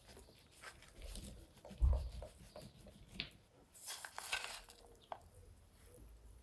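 Chopped vegetables rustling and pattering as they are tipped and scattered by hand from a wooden tray onto a large pan, with a low thump about two seconds in and a denser burst of rustling around four seconds in.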